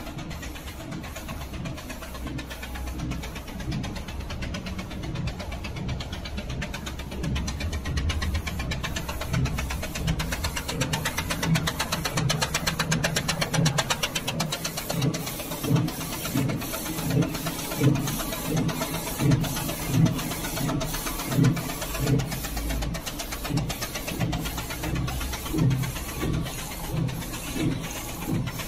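DTF printer and its powder-shaker unit running mid-print: a fast, even mechanical rattle of the shaking mechanism and feed, with a thudding pulse about once a second that grows stronger from roughly halfway through.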